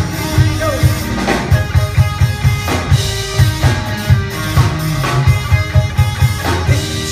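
Live rock band playing an instrumental passage with no vocals: drum kit beating steadily over electric guitar, bass and keyboards.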